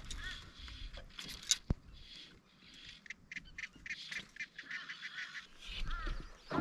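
Birds calling in short, repeated honking and chirping calls, with a single sharp click about a second and a half in.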